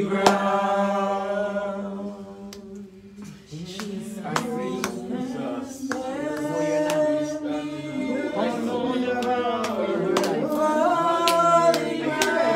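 Voices singing a slow worship song with long held notes, dipping quieter for a moment a few seconds in. Short sharp clicks or taps sound about every half second through the second half.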